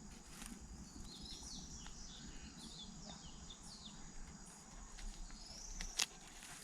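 Birds chirping in a quick run of short, sliding calls, over a faint steady high insect drone. There is a single sharp click about six seconds in.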